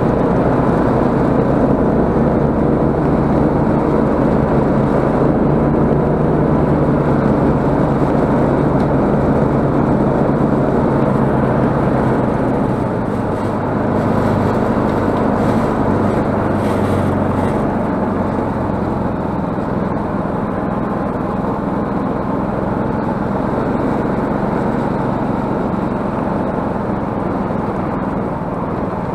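Snowmobile engine running steadily under way, its note easing off a little about halfway through.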